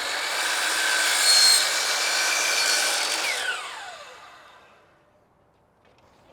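Electric power saw cutting through a siding board: the motor's whine holds steady through the cut, then the blade winds down with a falling pitch and fades away after about three and a half seconds.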